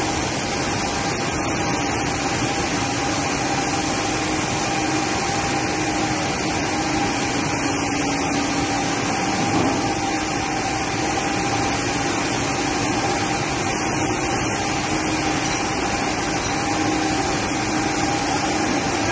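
A row of ZAAMP screw oil presses pressing soybeans, their motors and gear drives running together as a steady, even machine noise with a constant hum through it.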